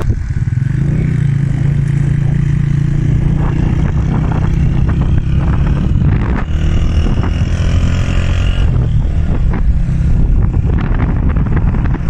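Motorcycle engine running steadily under way, with its note changing about halfway through.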